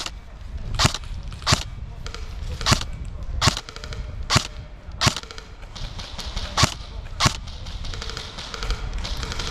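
Airsoft gun firing single shots, about nine sharp pops at uneven intervals of roughly half a second to a second and a half.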